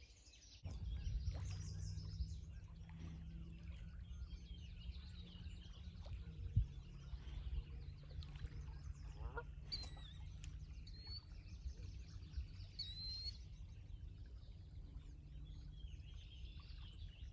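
Outdoor ambience: a steady low rumble sets in just under a second in, with scattered short bird chirps and calls over it, and a single sharp knock about six and a half seconds in.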